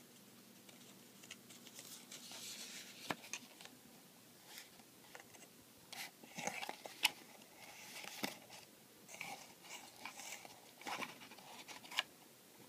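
Faint packaging handling: a card pen box's zipper tear strip pulled open with a short rustling tear, then scattered small clicks, taps and rustles as the box is worked open by hand.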